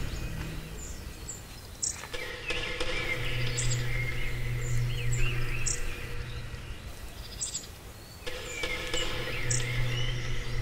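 Forest birds chirping and calling, with short gliding notes and a high note repeating about every second. A low steady hum comes in twice beneath them.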